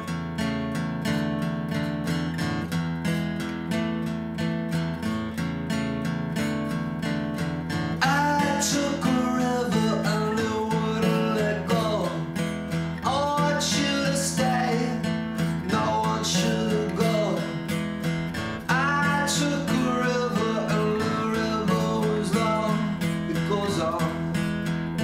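Background music: steadily strummed acoustic guitar with a regular beat, joined about a third of the way in by a lead melody line with bending notes.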